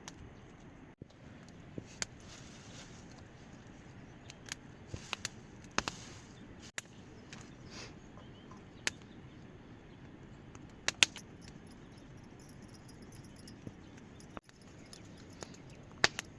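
Steady rainfall hiss with scattered sharp ticks and taps at irregular intervals, typical of raindrops and drips striking hard surfaces; the sound cuts out briefly three times.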